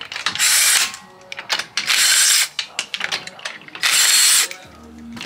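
Compact cordless ratchet spinning lug nuts off a car's front wheel: three runs of about half a second each, with short clicks between them.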